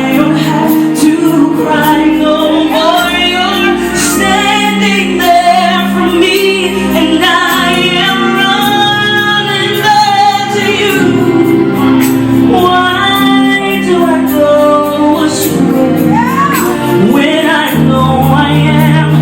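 Live gospel music: a female lead voice singing over a band with a steady drum beat and sustained bass and keyboard chords.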